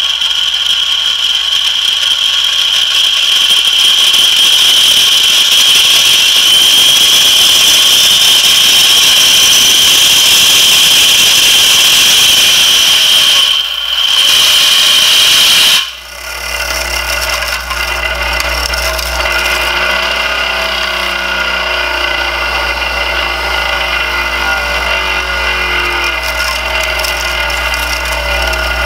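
3D-printed plastic gear train, a five-stage step-up driven by an electric motor, spinning at high speed with a loud, high-pitched whine and hiss that drifts slightly upward in pitch. The whine drops out briefly about 14 seconds in and cuts off abruptly about two seconds later. It gives way to a quieter, lower steady machine hum.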